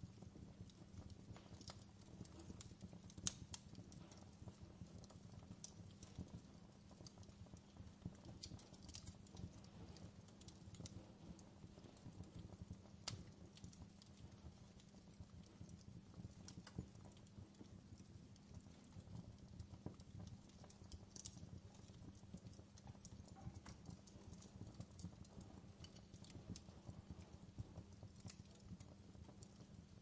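Quiet wood fire crackling: irregular sharp pops and snaps, the loudest about three seconds in, over a low steady rumble.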